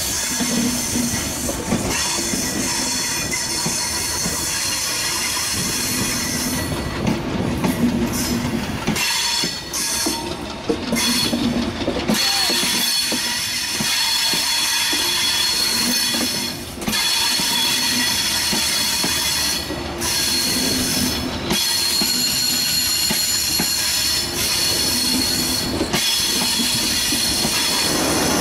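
Broad-gauge PT INKA-built passenger coaches rolling past close by on a curve. The wheels rumble and clatter on the rails, swelling each time a bogie goes by, over a steady high-pitched wheel squeal from the curve.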